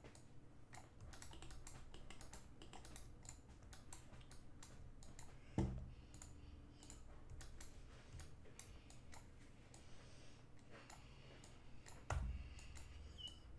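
Faint, irregular clicking and tapping of a computer keyboard and mouse during work at a desk. Two louder low thumps come about five and a half and twelve seconds in.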